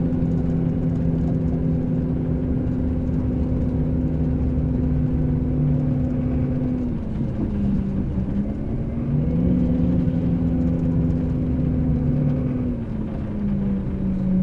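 Scania K380 coach engine running steadily with a low hum. The revs dip about halfway through, climb back, then drop again near the end, as the bus slows and changes gear.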